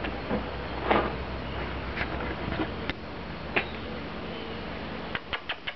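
Scattered clicks and knocks of handling, with a faint low hum under the first half and a quick run of five or six sharp clicks near the end.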